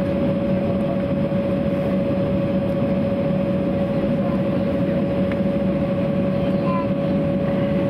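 Cabin noise of an Embraer 195 taxiing, its GE CF34-10E turbofan engines running at idle: a steady drone with a constant mid-pitched whine over a lower hum.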